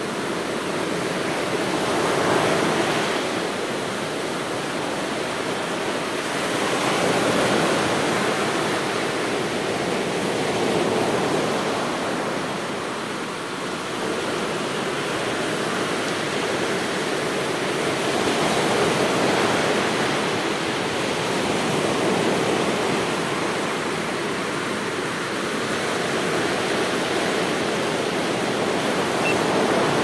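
Ocean surf breaking on a beach: a steady rush of foaming water that swells and eases every few seconds as each wave comes in.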